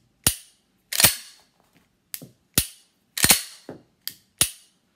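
Semi-automatic pistol's slide being racked again and again, about eight sharp metallic clacks, some in quick pairs, cycling and ejecting dummy training rounds from the chamber.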